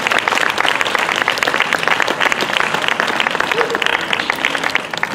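Audience applauding: many hands clapping in a dense patter that eases a little near the end.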